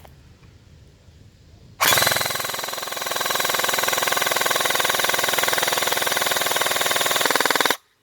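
Airsoft gun firing one long full-auto burst of about six seconds. It starts suddenly about two seconds in and cuts off sharply just before the end.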